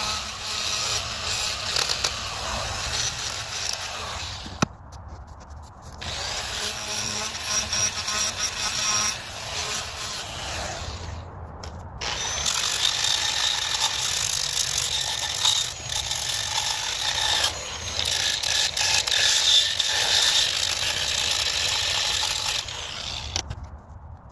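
Handheld power carving tool running and grinding into wood, a steady high whirring rasp. It stops briefly about five seconds in, again around eleven seconds, and just before the end.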